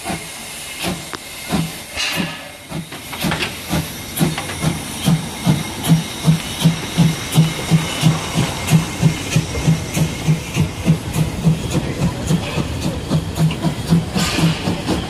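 Narrow-gauge steam locomotive 99 1782-4 pulling away with a train. Its exhaust chuffs start slow and quicken to about three a second as it gathers speed, with steam hissing throughout.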